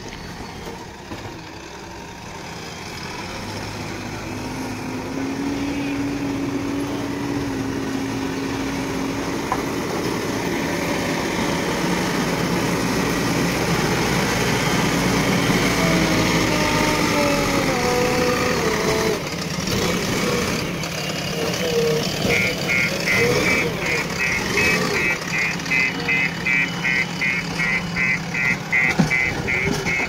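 JCB 3DX Plus backhoe loader's diesel engine running and revving under working load, growing louder over the first several seconds, its pitch rising and falling. For the last several seconds a reversing alarm beeps rapidly, about three beeps a second.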